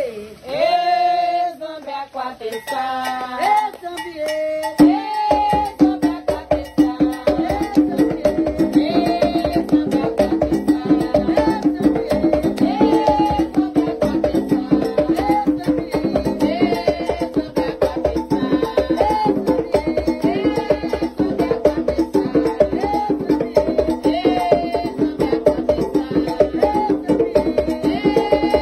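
A woman singing a Candomblé chant alone, then from about five seconds in percussion with a metal bell joins and keeps a fast, steady beat under the singing.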